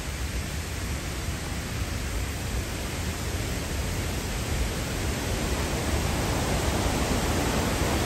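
Steady rushing of a waterfall, an even hiss across all pitches, growing slightly louder toward the end.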